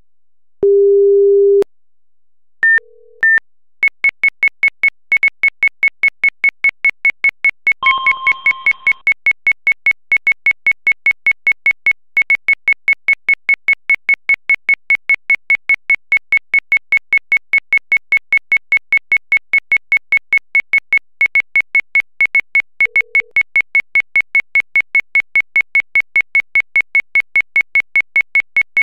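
Seismic monitor's synthesized alert signals: a low tone lasting about a second, two short high beeps, then fast, even electronic beeping at about three beeps a second, with a brief two-note chime about eight seconds in. The alert marks seismic activity picked up by the monitor.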